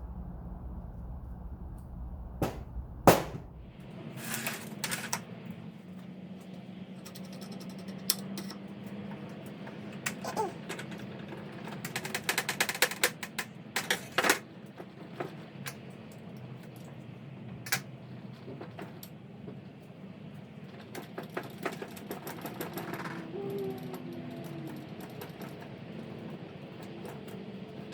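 Metal tools and engine parts clicking and knocking during hands-on disassembly work. The loudest knock comes about three seconds in, and a quick run of ratchet-like clicks follows about twelve seconds in, all over a steady low hum.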